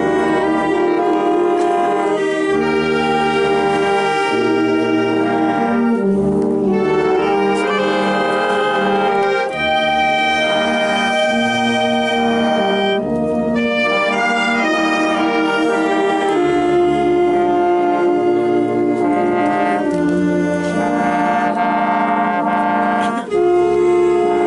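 Wind band of clarinets, saxophones and brass with a sousaphone playing a slow piece: long held notes in the melody over a low brass bass line.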